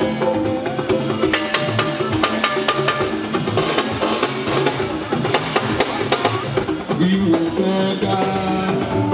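Live juju band music: a drum kit and percussion keep up a busy beat, with pitched melody lines over it.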